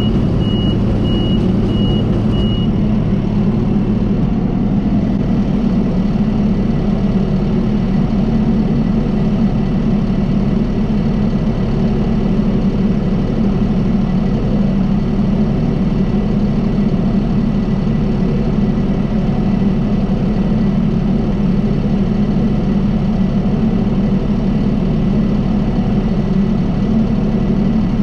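John Deere 5075E tractor's diesel engine running steadily under way. About five short, evenly spaced electronic beeps sound in the first two and a half seconds, then stop.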